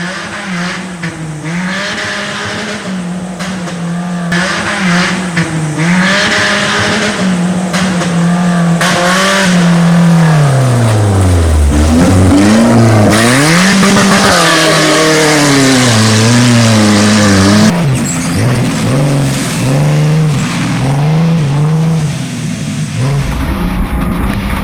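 Car engine revving up and down repeatedly as the car is driven hard, with tire noise throughout. The engine pitch drops low about halfway through, then climbs and falls again several times.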